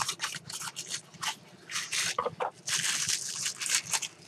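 Plastic packaging rustling and crinkling as a folding knife is unwrapped: a string of short crackles that thickens into a dense crinkle about three seconds in.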